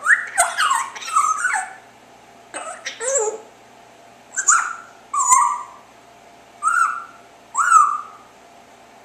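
African grey parrot chirping and whistling: a quick run of chirps gliding up and down in pitch, then a string of about six shorter chirps roughly a second apart.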